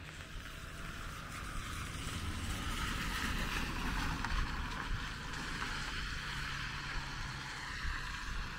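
A vehicle passing on a wet road: a tyre hiss with a low engine rumble that swells to a peak about four seconds in, then eases off slowly.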